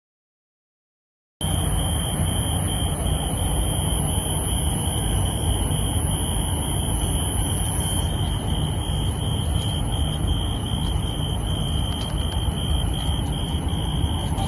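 Silence for about the first second and a half, then steady outdoor night ambience: a low rumble under a constant high-pitched whine that does not change.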